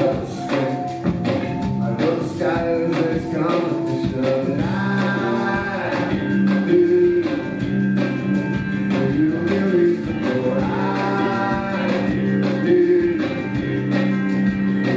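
Live rock band playing loud and steady, with a repeating bass line and regular drum hits; a voice sings in places.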